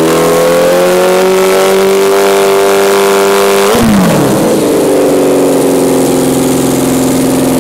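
Kawasaki KZ650 inline-four engine running loud through homemade stainless 4-into-2-into-1 headers and a baffled Cone Engineering reverse-cone muffler. The revs are held up and climb slowly, then drop sharply about four seconds in as the throttle is let go, and the engine settles to a steady lower speed.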